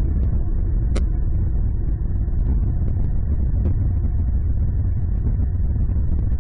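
Steady low rumble of distant road traffic, with a single faint click about a second in.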